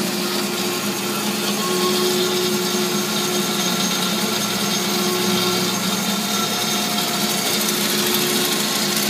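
AMADA HA250W automatic horizontal band saw running in its automatic cycle: a steady machine hum with a hiss.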